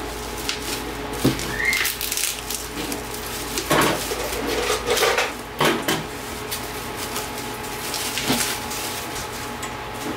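Bubble wrap crinkling and rustling as it is pulled off a boxed vinyl figure, with several louder crackles and light knocks from handling the plastic-cased box.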